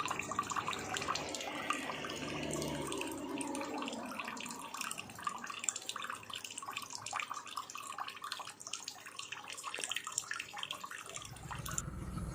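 Water trickling and splashing steadily over a small decorative waterfall, with many small irregular drips. Near the end the splashing gives way to a low steady hum.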